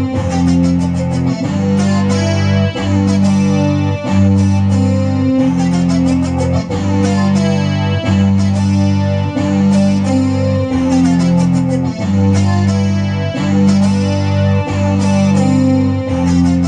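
Yamaha electronic keyboard played on a guitar-like plucked voice with effects. Low held bass notes change about every second and a half under higher chords.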